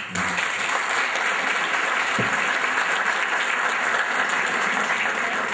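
Audience applauding: dense, steady clapping that breaks out all at once and holds at an even level.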